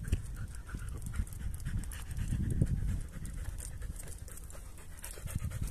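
A border collie panting.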